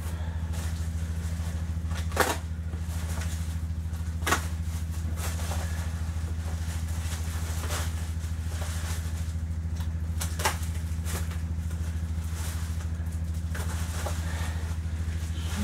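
A steady low machine hum with a few short crackles and rustles of bubble wrap being handled and unwrapped, sharpest about two, four and ten seconds in.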